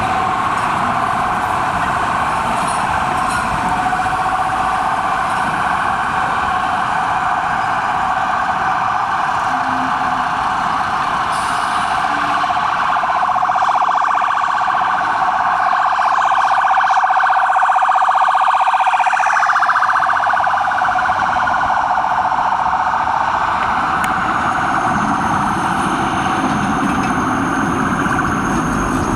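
Tram wheels squealing against the rails on a curve: a loud, steady, high-pitched screech held throughout. The pitch slides down about two-thirds of the way through, and a thinner, higher whistle joins near the end.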